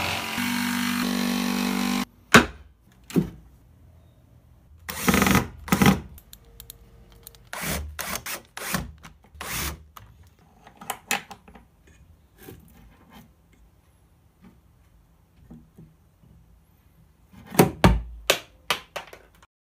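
A power saw cuts into a wooden cabinet panel for about two seconds, then stops abruptly. After that come short bursts of a cordless drill and scattered knocks and clicks as metal latches are screwed on and worked against the wood.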